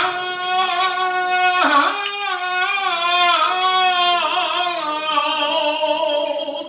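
A man singing a slow, ornamented melody into a microphone, in long held notes that waver in pitch, with a brief break about two seconds in; the singing stops near the end.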